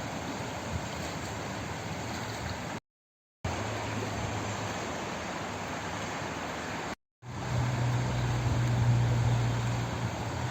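Steady rushing noise of flowing water, cutting out to dead silence twice for a moment, about three seconds in and about seven seconds in. After the second gap a deeper rumble under the rush comes in louder.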